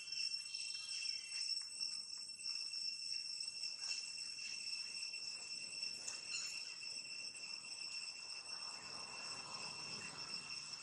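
Steady high-pitched insect chorus, holding several thin tones without a break, with a few faint ticks and rustles.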